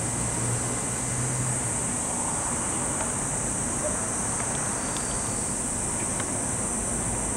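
Steady high-pitched drone of summer cicadas over a low hum that stops about two seconds in, with a few faint clicks.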